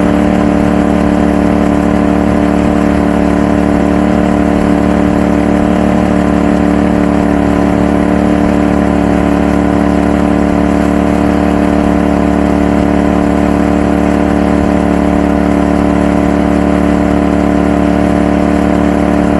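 Prodigy GTRxd surface-drive mud motor running steadily at a constant high speed, pushing a duck boat, with a hiss of spray beneath the engine's drone.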